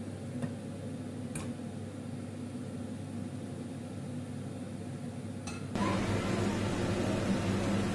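A glass pot lid clinks lightly twice near the start over a steady kitchen hum. About six seconds in, a louder, steady hiss sets in.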